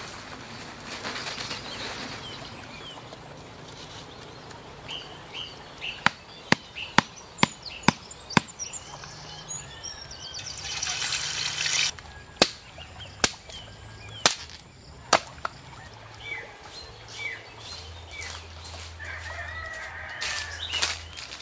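Forest sounds with scattered bird chirps, broken by a run of sharp knocks about two a second and later a few more single knocks, with a brief hissing burst in between.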